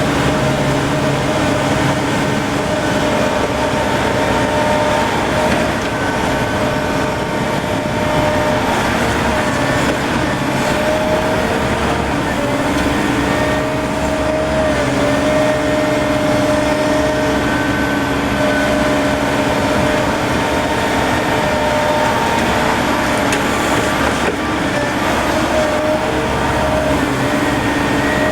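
Heavy construction machinery engines running steadily, a continuous drone with several steady tones that shift slightly and come and go.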